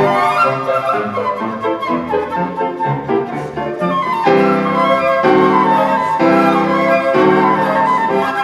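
Flute playing a melody over piano accompaniment in a classical style, with a quick rising run of notes about a second in.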